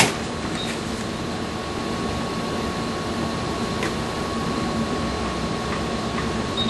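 Steady hum of surge-test equipment and room ventilation with a faint, steady high whine. A sharp click comes at the very start and a fainter one about four seconds in, as the surge generator fires combination-wave surges into the surge protector.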